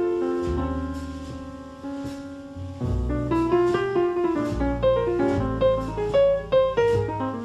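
Background music led by piano: a slower, softer passage, then from about three seconds in a busier melody over a bass line.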